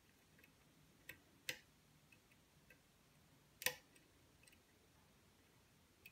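Scattered faint metallic clicks of a lock pick working the pins of a pin-tumbler challenge lock under light tension. There are two clicks a little after one second and the loudest about three and a half seconds in, with softer ticks between.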